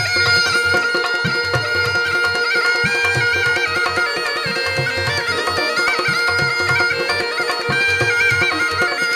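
Rajasthani folk instrumental music: a murli (been) double pipe plays a reedy, stepping melody over its own steady drone, with regular drum beats underneath.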